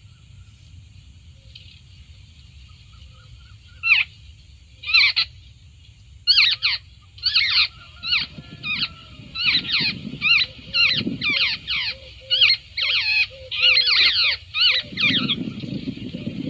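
Charkhi bird calls played as a lure through a portable speaker box: a few separate harsh, downward-sweeping chirps, then a fast chattering run of them about two a second, which breaks off near the end.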